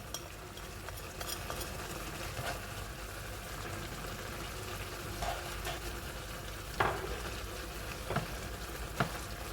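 Chicken adobo sauce with vegetables sizzling steadily in a pan, with a few clinks of a utensil against the pan in the second half.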